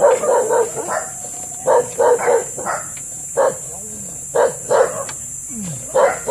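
A dog barking repeatedly, loud short barks in irregular runs.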